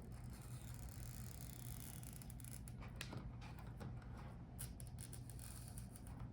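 Faint scraping and a few small clicks from hands working on a laptop's display assembly, over a steady low hum.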